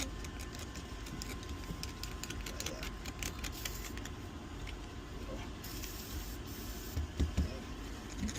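Small lock parts being handled and wiped clean with paper napkins: scattered light clicks and rustling, with a short hiss about six seconds in and a couple of soft knocks near the end.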